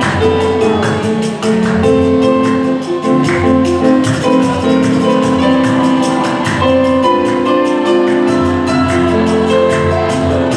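Instrumental break in a samba song: held melody notes over a regular beat, with no singing.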